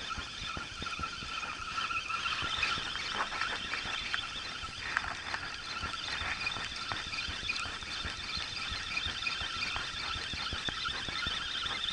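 Spinning reel being cranked quickly to wind in line, giving a steady high whine over fine ticking.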